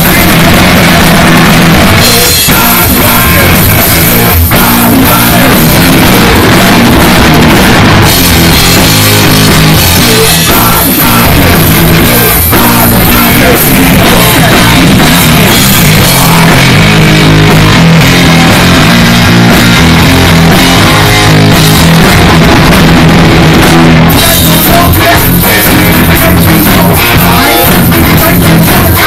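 Heavy metal band playing live at full volume: distorted electric guitar, electric bass and a drum kit, with the singer's vocals over them. Very loud, close to the band.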